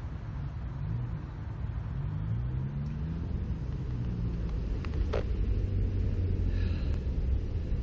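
A low engine rumble whose pitch rises and then falls over the first few seconds, with a short knock about five seconds in.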